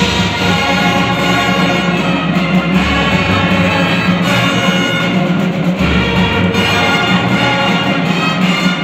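Marching band playing, with the brass holding long sustained chords over a steady low note.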